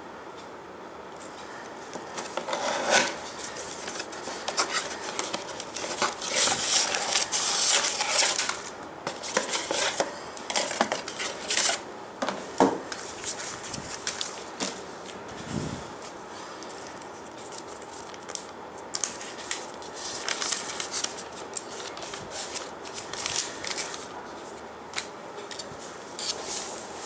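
A small cardboard toy box being opened and its contents handled: irregular rustling and crinkling with sharp clicks, in two busy spells with a single dull thud between them.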